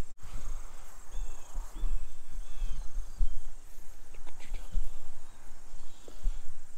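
Outdoor field ambience: a steady high insect trill with a low, uneven wind rumble on the microphone. Three short high chirps come about a second in.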